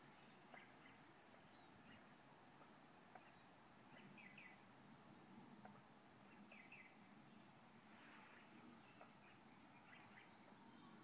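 Faint outdoor ambience of small birds chirping now and then, over a very high-pitched insect call pulsing about four times a second. The insect call stops about six seconds in and starts again a couple of seconds later.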